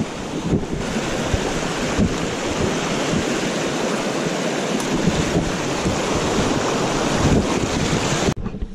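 Shallow rocky stream rushing over stones in small rapids, a loud steady water noise, with wind buffeting the microphone in low thumps. It cuts off suddenly near the end.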